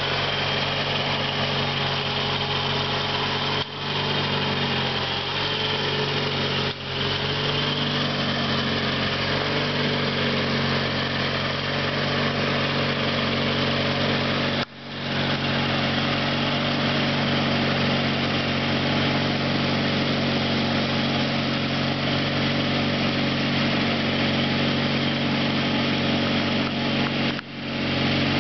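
1978 Sears GT/19.9 garden tractor engine running steadily while mowing grass. The sound drops out for a moment a few times.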